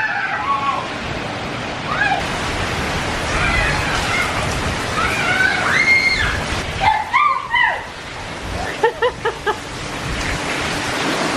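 Strong wind buffeting the microphone in a steady rush of noise. Several short high-pitched cries come through it, with a quick run of four short cries near the end.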